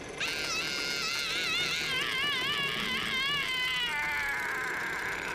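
A high, buzzing whine like a flying insect, its pitch wobbling rapidly up and down, then gliding downward and fading near the end.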